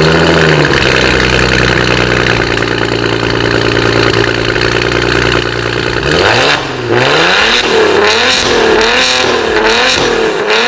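Maserati Ghibli turbocharged 3.0-litre V6 through a Fi Exhaust valvetronic cat-back with quad tips, car standing still. A short rev right at the start drops back to a steady idle, then a quick string of throttle blips, one about every half second, fills the last four seconds.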